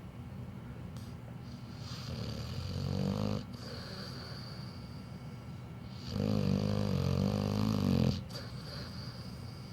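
Pit bull snoring in its sleep: two drawn-out snores, a shorter one that builds up about two seconds in, and a longer, louder one about six seconds in that lasts about two seconds.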